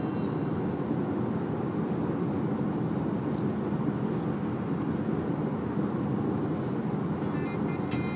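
Steady road and engine noise of a car cruising at speed on an expressway, heard from inside the cabin.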